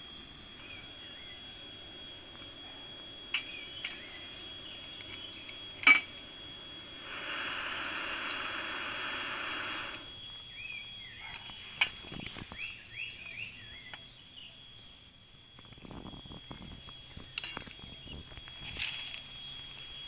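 Canister gas stove burner hissing steadily, then cut off suddenly about halfway through when its valve is turned. Birds chirp throughout, and there is a sharp knock about six seconds in and another near twelve.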